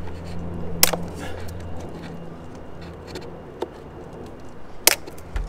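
Cable ties on a plastic mudguard being snipped off: two sharp snaps about four seconds apart, with a fainter click between them. A low steady hum stops about two seconds in.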